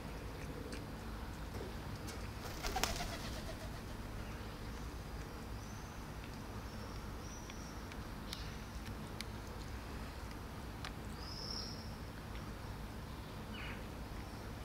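Outdoor ambience over a steady low hum, with a few short, high bird chirps. A brief sharp noise about three seconds in is the loudest sound, and a few faint clicks follow.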